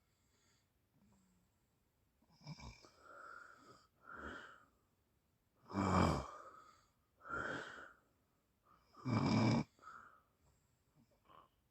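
Person snoring in sleep. After about two seconds of quiet come several breaths, with two loud snores about three seconds apart and softer breaths between them.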